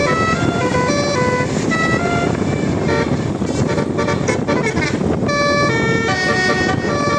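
Bus 'telolet' multi-tone horn playing a rapid tune of stepped notes. It breaks off for about two seconds midway, then comes back with several notes sounding together.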